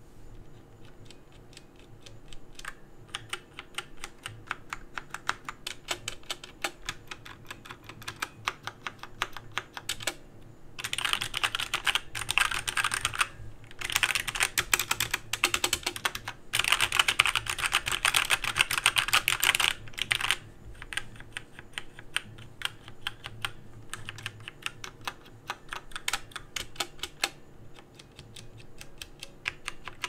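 Typing on a Dierya 60% mechanical keyboard with Outemu Red linear switches, heard close up. The keys clack with no click. The typing is lighter at first, then comes in faster, louder runs in the middle, then eases off again.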